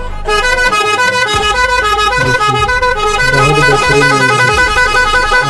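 Electronic 16-sound bike horn playing a melody of short held notes that step up and down in pitch.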